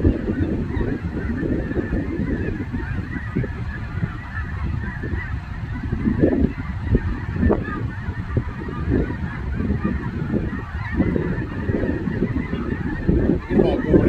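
A huge flock of snow geese calling overhead: a dense, continuous clamour of overlapping honks, with a low rumble underneath.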